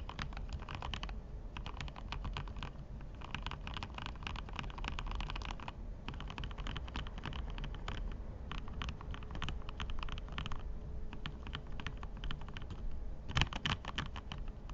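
Lubed mechanical keyboard switches being typed on fast, in dense runs of keystrokes with brief pauses between them, and a louder flurry near the end.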